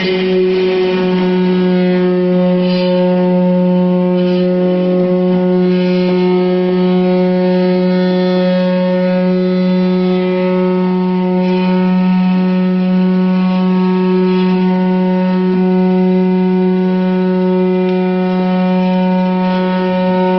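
Concrete vibrator needle running steadily, an even loud hum that holds one pitch throughout.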